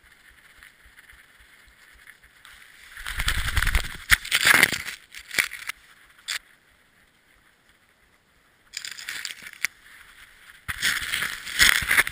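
Deep snow brushing and crunching against a sled dog's harness-mounted camera as the dog plunges through it breaking trail, in three loud bursts: the first about three seconds in, the others near the end.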